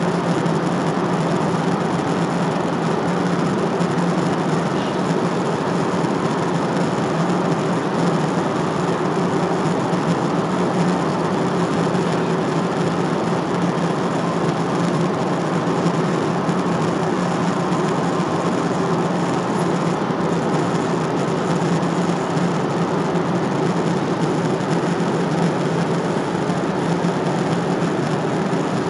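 Steady airliner cabin noise in cruise flight: the constant rush of airflow and jet engines heard from a window seat, with a low hum underneath.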